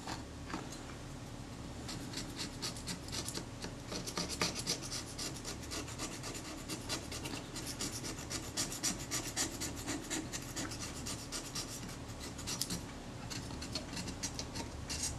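Back edge of a scalpel scraping old dried adhesive off the oxidized aluminium body casting of a Kodak Retina IIIS camera: a steady run of short, quick scraping strokes.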